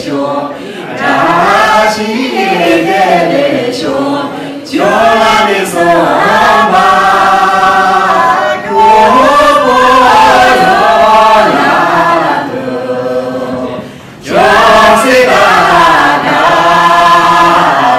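Men and women singing a Tibetan song together into microphones, in long drawn-out, wavering phrases with brief pauses between them.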